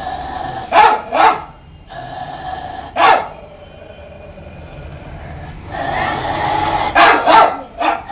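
Small white dog on a chain barking at newcomers, as it does at anyone who comes by: five barks, a pair about a second in, one a couple of seconds later and another pair near the end.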